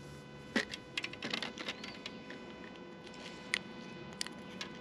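Handling of a freshly caught crappie and its jig and line: a scatter of light, irregular clicks and taps.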